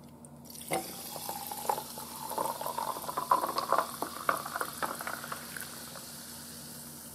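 Sparkling water poured from a bottle over ice into a glass: a gurgling pour whose pitch rises as the glass fills, with a few sharp crackles. The fizz hisses throughout and carries on after the pour stops, about five and a half seconds in.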